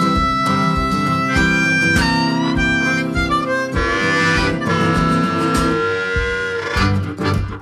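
Background music: a harmonica playing a melody over guitar and a steady beat.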